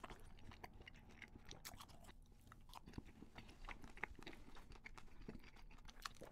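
A person biting into a small cream-topped doughnut, then chewing it, with many small, quick, wet mouth clicks.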